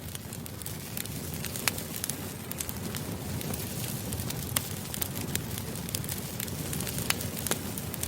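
Campfire burning: a steady low rumble of flames with frequent sharp, irregular pops and crackles from the wood.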